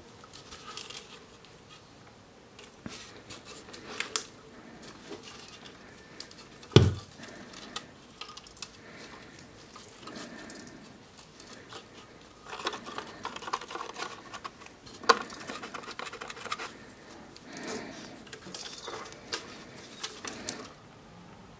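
A heavily rusted WWII German M42 steel helmet handled in gloved hands: scattered taps, scrapes and rustling of metal and rust, with a sharp knock about seven seconds in and clusters of scraping in the second half.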